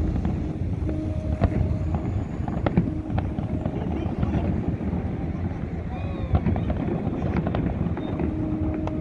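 Fireworks going off: many short, sharp bangs and crackles over a continuous low rumble.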